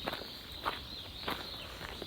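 Footsteps, four steps at a steady walking pace, over a steady outdoor background hiss.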